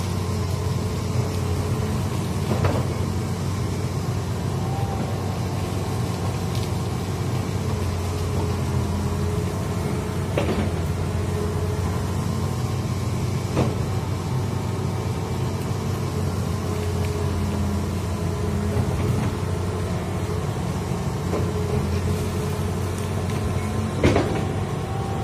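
Hitachi hydraulic excavator's diesel engine running steadily, with a few sharp metallic knocks from the machine spread through.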